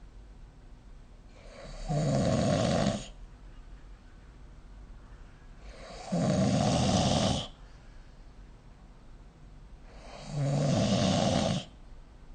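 A sleeping person snoring: three snores, each about a second and a half long, coming about every four seconds.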